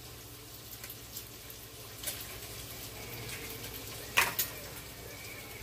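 Eggs being cracked against a glass mixing bowl: a sharp double tap of shell on the rim about four seconds in, with a few lighter clicks. Underneath is the faint, steady sizzle of bacon frying.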